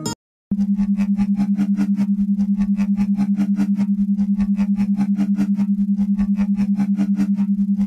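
Brainwave-entrainment therapy tone: a single steady low hum pulsing rapidly and evenly. It starts about half a second in, after a brief gap.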